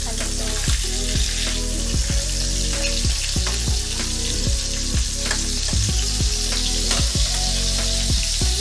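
Bilong-bilong fish frying in hot oil in a metal pan, a steady sizzle, with a metal ladle knocking and scraping in the pan now and then as the fish is turned and basted.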